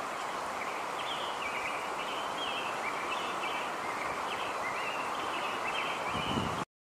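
Outdoor nature ambience: a steady rushing hiss with a small bird singing quick, repeated chirps that slide up and down in pitch. The sound cuts off abruptly near the end.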